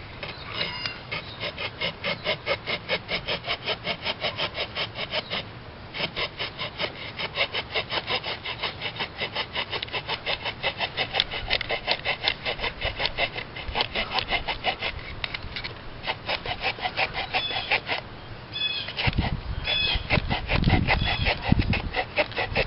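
Saw blade of a Wenger Evo 18 Swiss Army knife cutting through a log in quick back-and-forth strokes, about four or five a second, with brief pauses twice. Low bumps join the sawing near the end.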